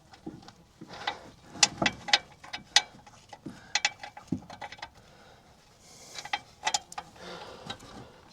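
Irregular metallic clicks, clinks and knocks of hand tools and bolts being worked on a car's front suspension and ball joint, with a brief scrape or hiss about six seconds in.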